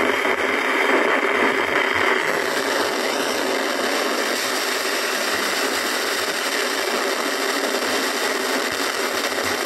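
Home theater speaker giving out a loud, steady hissing noise instead of clear sound. The hiss grows brighter about two seconds in. The repairer traces the fault to an amplifier IC with 0 V at its output that is running very hot.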